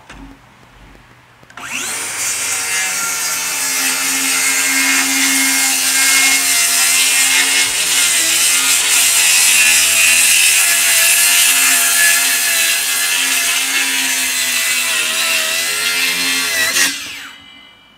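DeWalt DCS577 FlexVolt 7-1/4-inch brushless cordless rear-handle circular saw ripping a 2x board lengthwise, blade buried in the wood. It starts about a second and a half in and cuts steadily for about fifteen seconds under a hard feed, keeping its speed, then winds down near the end.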